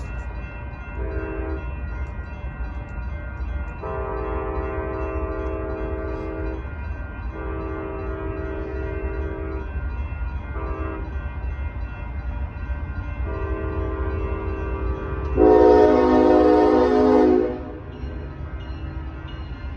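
Diesel locomotive horn sounding a grade-crossing signal of long, long, short and long blasts, after a brief toot about a second in, as a train approaches the crossing. The last long blast jumps much louder partway through before cutting off, over a steady low rumble of the train.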